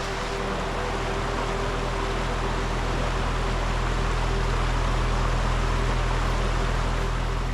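Steady rushing of a creek flowing over rocks, with a low steady drone underneath.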